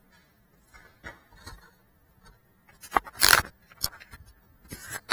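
Handling noise on a small FPV drone's onboard camera as it is picked up by hand. A knock about three seconds in, then a brief rubbing scrape, then a few lighter clicks. Before that only faint scattered sounds, with no propeller or motor noise.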